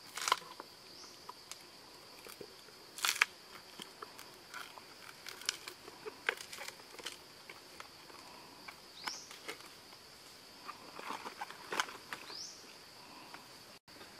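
Steady high drone of insects, with crackles, rustles and small clicks of moist banana stem sheath being handled and folded, loudest near the start and about three seconds in. A couple of short rising chirps sound near the end.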